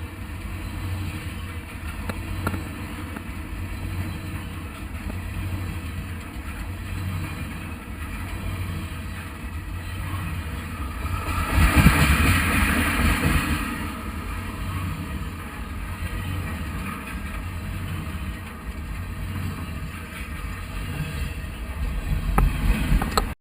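Train rumbling along the railroad track, a steady low rumble that swells into a loud burst of rushing, rattling noise about halfway through as it passes closest.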